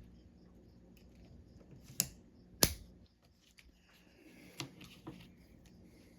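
Sharp metal clicks of small hand tools working on a ratchet's snap ring: two loud clicks about two and two and a half seconds in, then two fainter ones a couple of seconds later.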